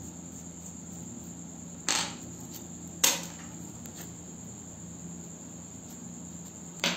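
Three sharp metallic clicks of small sewing-machine tension-assembly parts being handled, the loudest about three seconds in, over a steady high-pitched background tone and a low hum.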